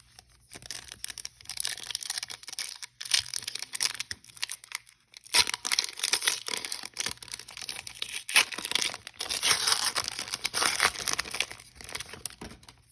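Trading card pack wrapper being torn open and crinkled by hand, a dense crackle that stops briefly about five seconds in and then resumes.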